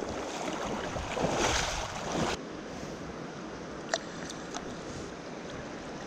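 Steady rushing of a mountain stream. A louder noise swells over the first couple of seconds and stops abruptly about two and a half seconds in, leaving the even rush of water with a few light clicks near the middle.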